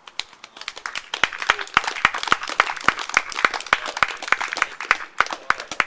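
A small group of spectators clapping, with uneven individual hand claps easy to pick out, greeting the putt that wins the match.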